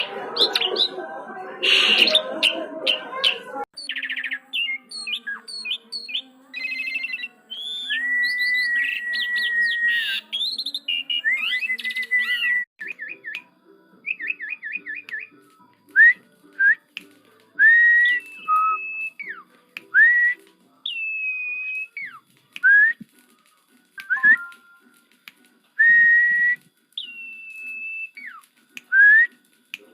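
Asian pied starling (jalak suren) singing: a few seconds of harsh, dense chattering, then a varied run of clear whistles, with rising slurs, held whistled notes and quick trills in separate phrases with short pauses between them.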